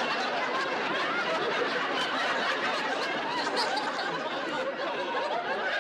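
Studio audience laughing, a long unbroken laugh from many people at once.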